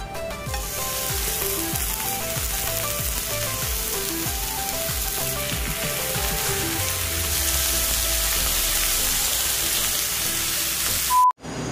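Pork belly slices sizzling on a hot grill pan, the sizzle starting about half a second in and growing a little louder past the middle, under background music of light stepped notes. Near the end there is a short beep, then the sound cuts out for an instant.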